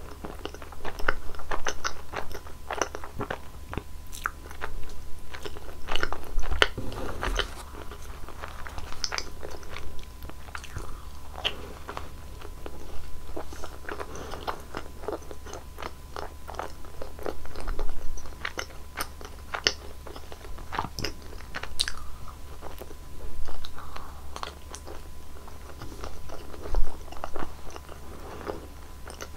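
Close-miked biting and chewing of a Nutella-filled roll: many short mouth clicks and smacks throughout, with louder bites about 6 s, 18 s and 27 s in.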